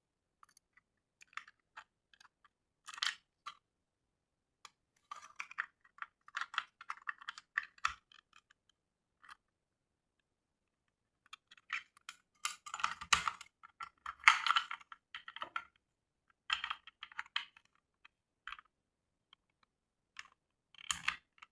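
Irregular small clicks, taps and brief rustles of a 35 mm film cartridge being handled and fitted into the open back of a simple non-reflex film camera. The busiest stretch comes about halfway through, with a few quiet gaps between bursts.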